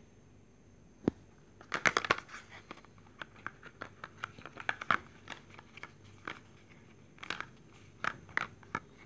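Plastic and paper packaging crinkling and rustling in scattered crackles as items are unwrapped by hand, with a sharper snap about a second in and a busier burst of rustling near two seconds.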